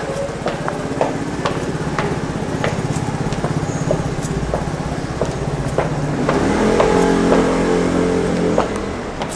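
High-heeled shoes clicking on stone steps, about two steps a second, over a motor vehicle engine running steadily. The engine grows louder from about six seconds in and eases off near the end.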